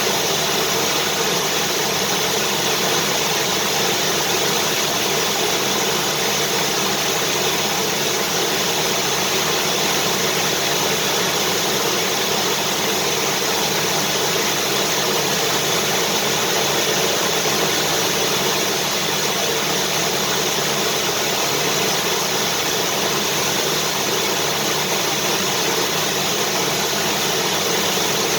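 Vacuum cleaner running steadily: a constant motor whine and rush of air that does not change.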